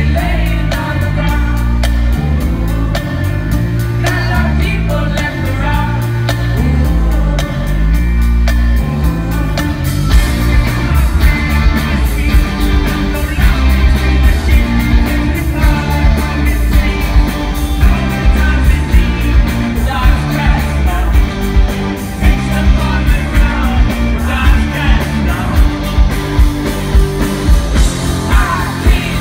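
Live rock band with a male lead singer, electric guitar, bass and drums. About ten seconds in, the drums come in hard with a steady, pounding beat.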